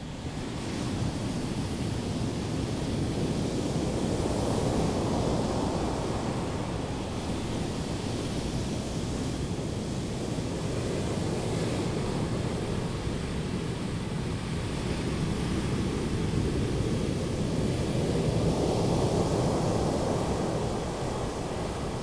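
Ocean surf washing onto a sandy beach in a continuous deep wash, swelling louder twice as larger waves come in, with some wind on the microphone.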